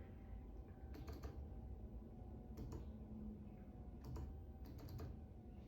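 Faint, irregular clicks and light knocks from the car, a few scattered over a steady low rumble inside the cabin. This is the clunking noise that happens without any gear change.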